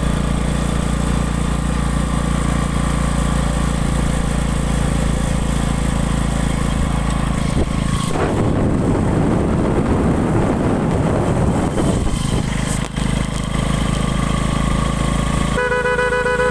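An engine running steadily, turning rougher and noisier for about four seconds in the middle; near the end, music with held notes comes in.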